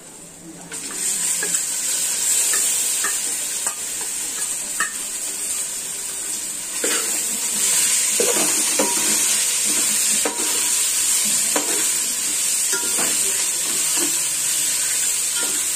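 Masala-marinated chicken pieces sizzling as they go into hot oil in a metal pot, with a steel spoon scraping and clinking against the pot as they are stirred. The sizzle starts suddenly about a second in and then keeps going steadily.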